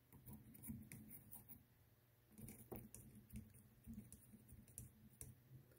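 Faint, irregular small clicks and crackles from a soldering iron and a piece of scrap wire being worked on an XT90 connector's solder joint to pick up excess solder.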